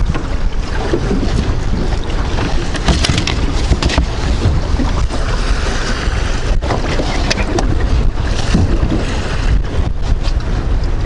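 Wind buffeting the microphone on an open boat: a loud, steady rumble of wind noise, with occasional knocks and clicks.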